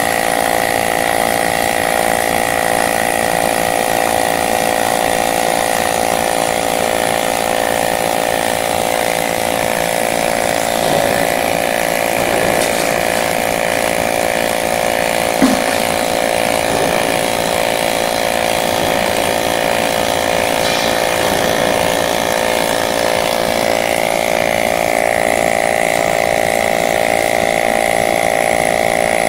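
AC TIG welding arc on an aluminum pipe, making a steady, even electric buzz, with one small click about halfway through.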